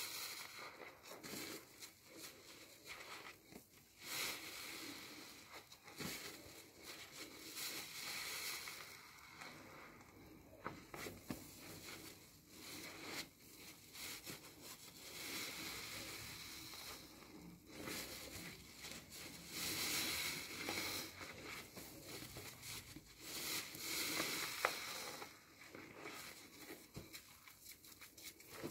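A new car sponge squeezed and kneaded again and again in thick soapy lather: wet squelching with crackling, popping foam, swelling and fading with each squeeze.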